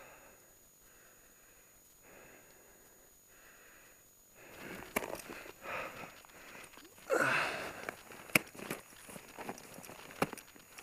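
Ice axes being swung and planted into snow-covered ice, with crunches and sharp clicks from about halfway in. Before that, quiet breathing.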